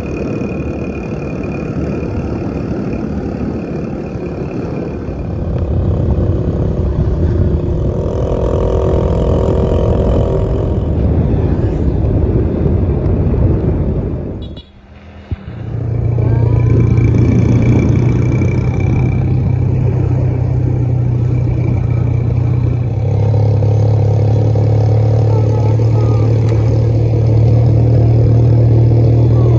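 Motor vehicle engine running while under way, with road and rushing-air noise. About halfway it cuts out briefly, then comes back as a steady low engine drone.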